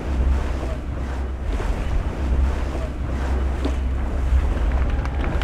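Wind buffeting the microphone as a steady low rumble over the rushing wash of sea water and waves around a boat under way.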